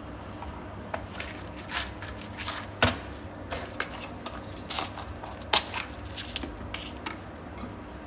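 Brass-and-chrome Zippo lighters being handled: a string of sharp, irregular metal clicks and clacks, two of them louder, about three and five and a half seconds in, over a faint steady hum.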